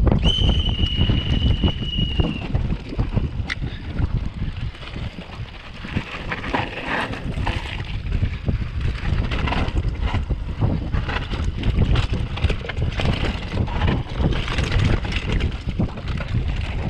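Mountain bike riding down a rocky dirt trail: wind buffeting the microphone, tyres rumbling over dirt and rock, and frequent quick rattles and clicks from the bike. A high steady squeal lasts about two seconds near the start.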